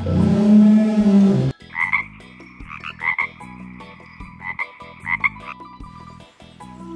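A deep roar that cuts off suddenly about a second and a half in, then a frog croaking in short repeated bursts for about four seconds.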